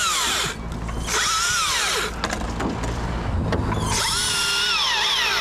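Battery-powered Husqvarna T542i XP top-handle chainsaw run in three short bursts, its motor whine falling away each time the trigger is released.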